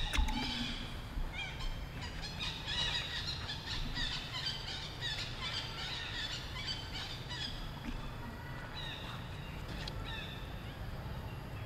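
Many short, high-pitched chirping calls from animals, overlapping and busiest in the middle, then thinning out, over a steady low rumble.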